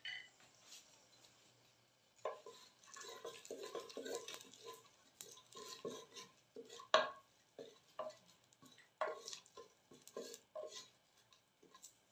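Wooden spoon stirring sliced onions in oil in a clay pot, scraping and knocking irregularly against the earthenware, with a few sharper knocks. The stirring starts about two seconds in.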